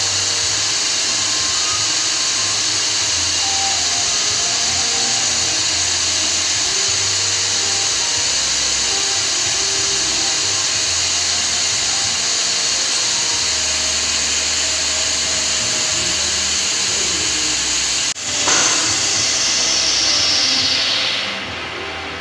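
Loud, steady hiss from the moulding machine, with a low hum beneath. About eighteen seconds in it breaks off sharply, comes back and then dies away near the end.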